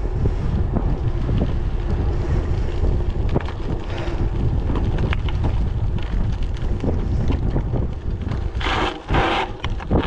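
Wind buffeting the microphone while riding an electric bike, a steady low rumble. Near the end, as the bike slows almost to a stop, two short noisy bursts about half a second apart.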